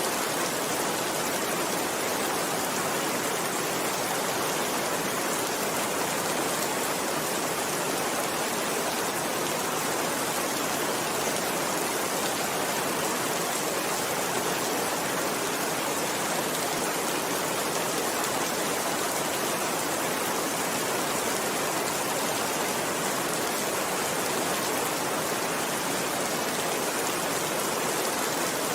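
Steady, unbroken rainfall: a constant even hiss of heavy rain.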